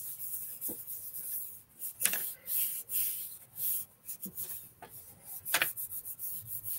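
Hands rubbing back and forth over a sheet of scrap paper laid on cardstock, in irregular rustling, scraping strokes. The cardstock is being pressed onto an inked rubber background stamp to transfer the image.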